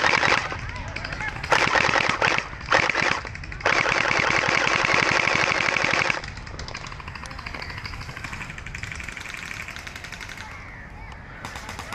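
Hydro Strike Pulsar Pro gel blaster firing rapid full-auto bursts: one ends just after the start, then three more follow, the last about two and a half seconds long.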